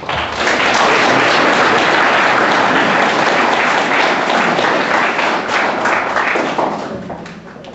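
Audience applauding. It starts suddenly, holds steady, then thins to a few scattered claps and dies away near the end.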